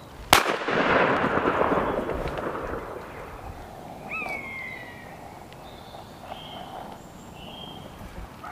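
A single break-action shotgun shot, fired up into the trees at a woodpigeon, with its report rolling away as a long echo over the next two to three seconds.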